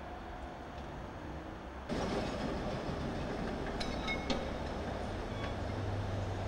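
Railway yard noise by a standing SBB electric locomotive and coaches: a steady rumble that steps up louder about two seconds in, then a few sharp metallic clinks just past the middle, and a low steady hum near the end.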